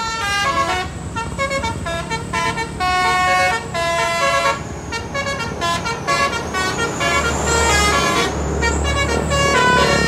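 Bus 'telolet' multi-tone musical horn (Basuri horn driven by a DAV module) playing a fast tune of short changing notes, over and over, with the bus's engine running beneath, heavier from about seven seconds in.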